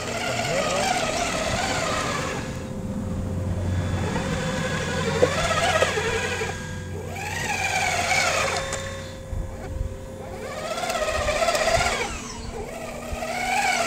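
Motors of an RC model CAT 5110 excavator whining as it slews and digs, the pitch repeatedly rising and falling in swells as the controls are worked.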